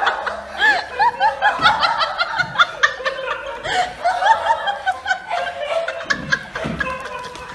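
High-pitched laughter, short peals repeating several times a second without a break.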